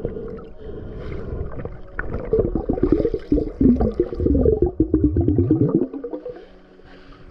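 Underwater churning and rapid scraping as a gloved hand digs and fans the sandy seabed to uncover a metal-detector target, with a warbling tone running through it; it dies down about six seconds in.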